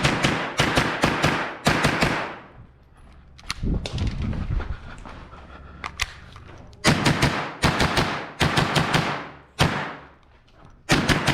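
Umarex Walther H&K MP5 rifle in .22lr firing strings of quick semi-automatic shots, several in a row at the start, a few scattered shots in the middle, and another fast string after about seven seconds.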